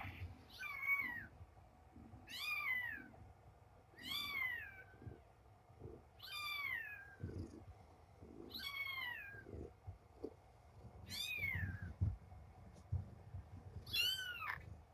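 Newborn kitten mewing, seven short high cries in a row, each falling in pitch, about every two seconds.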